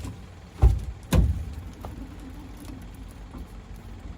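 Two dull, heavy thumps about half a second apart. A faint steady hum and low rumble follow.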